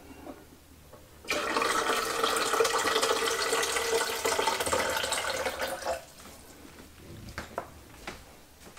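Filtered water poured from a pitcher into a Keurig K-Slim coffee maker's plastic water reservoir: a steady pour that starts about a second in and stops about five seconds later, followed by a few faint clicks.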